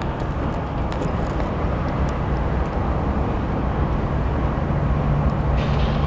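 Diesel locomotive running as it moves slowly through a rail yard: a steady low engine hum over a broad rumble, growing a little louder toward the end.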